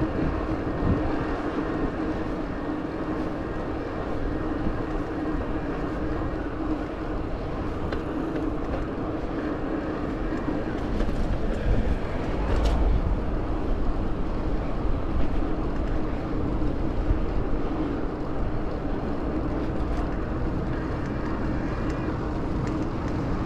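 Riding noise from a Cube Cross Pro Hybrid 400 e-bike rolling along an asphalt bike lane: a steady rush of wind and tyre noise with a constant low hum.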